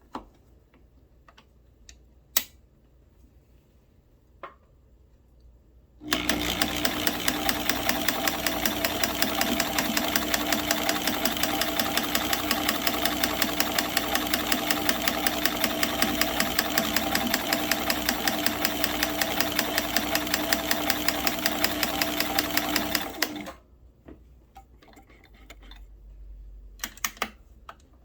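Kenmore 158.1703 sewing machine running with a Kenmore 36149 monogrammer attachment, stitching a letter. The motor hums steadily under a fast, even ticking of stitches for about seventeen seconds, starting about six seconds in and stopping suddenly. A few separate clicks come before and after the run.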